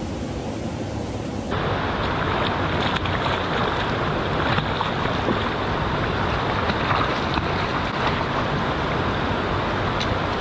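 River water rushing over rocks close to the microphone, steady, with a few light splashes and ticks as a trout is netted at the water's edge. For the first second and a half the rush is duller, then it turns louder and brighter.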